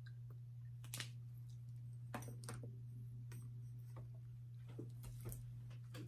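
A steady low electrical hum with about eight scattered faint clicks and small lip sounds from liquid lipstick being applied to the lips.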